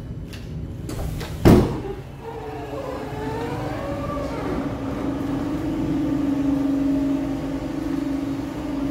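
A single loud thump about a second and a half in. Then an electric train's motors whine, rising and falling in pitch, and settle into a steady hum at a station platform.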